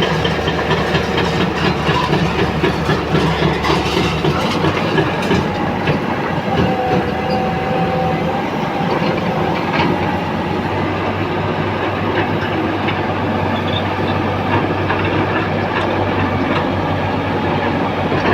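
Heavy diesel construction machinery running steadily, with repeated metallic clanking and rattling and a few drawn-out squeals of metal on metal.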